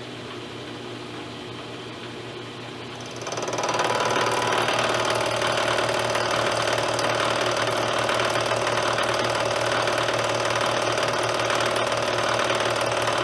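High-speed rotary cutting tool set to about 25,000 rpm, running quietly at first, then about three seconds in getting much louder with a steady whine and hiss as it cuts into the metal part. At this speed it cuts smoothly and sounds better.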